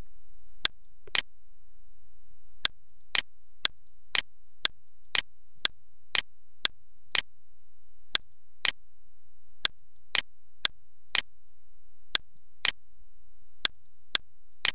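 Computer mouse clicking: about two dozen sharp clicks, mostly in pairs about half a second apart, as colours are picked from drop-down lists.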